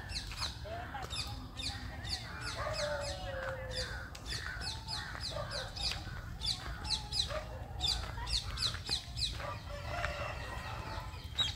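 Birds chirping: short high chirps that fall in pitch, repeated several times a second in quick runs, with lower, wavering calls from other birds beneath, over a low steady rumble.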